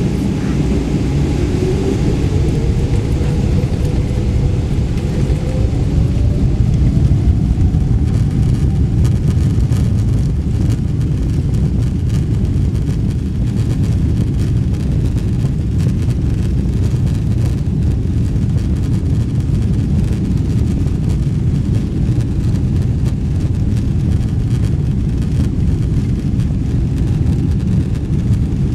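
Boeing 777-300ER's GE90-115B jet engines heard inside the cabin during takeoff: a loud, steady, deep rumble, with a whine that rises in pitch over the first several seconds as the engines spool up to takeoff thrust.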